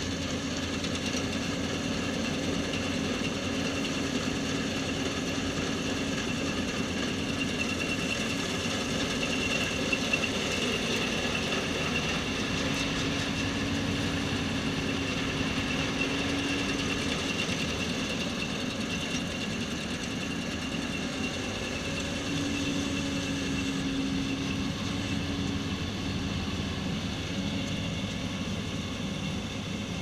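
Fendt 8370P combine harvester running steadily while harvesting: a constant drone with a steady high whine over it.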